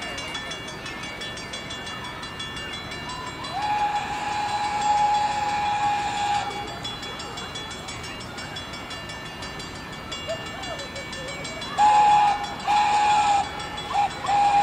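Train whistle sounding one long steady note, then, near the end, the grade-crossing signal: long, long, short, and a last long blast still going as the train nears the crossing.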